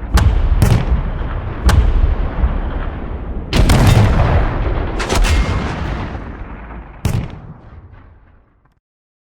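Sound-designed WW2 battle ambience: sharp gunshots and heavy artillery booms over a constant low rumble, about six distinct shots, the loudest stretch around three and a half seconds in. It then fades out and goes silent shortly before the end.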